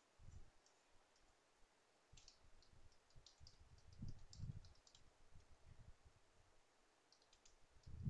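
Faint, scattered clicks of computer keyboard typing and mouse clicks over near-silent room tone, in a bunch from about two to five seconds in and again near the end.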